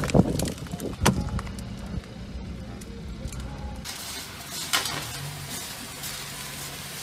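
A few sharp clicks and knocks over a low rumble, then, from about four seconds in, a steady hiss of freezing rain with a low hum from a passing trolleybus.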